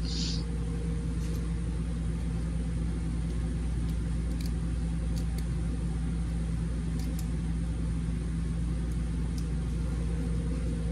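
Steady low mechanical hum with a fainter higher tone above it, even throughout, and a few faint light ticks.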